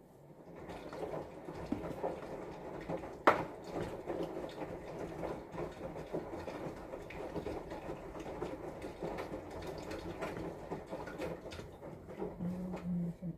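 Metal frosting spatula scraping whipped cream out of a bowl and spreading it over a cake, a continuous scraping and smearing noise with one sharp knock about three seconds in.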